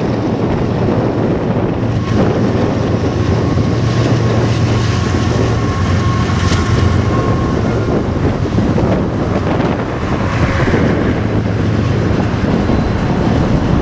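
A train rolling past close by with a steady rumble, wind buffeting the microphone.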